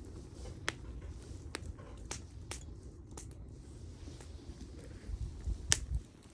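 Firewood burning, crackling with sharp, scattered pops over a low rumble; the loudest pop comes near the end.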